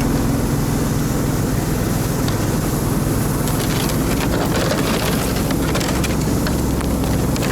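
Motorized snow tug's small engine running steadily under way, with scattered clicks and crackles over it.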